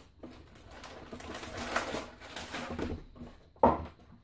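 Cardboard shipping box and the clear plastic packaging of a 3.5-inch hard drive rustling and crinkling as the drive is lifted out of the box, with one sharp knock about three and a half seconds in.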